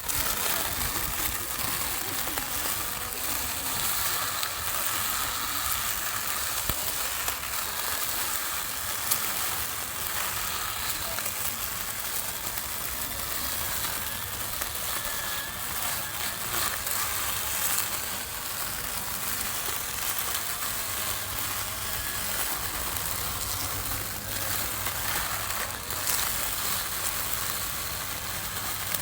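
Small lawn mower running steadily and cutting grass, a continuous hiss with a faint motor hum underneath.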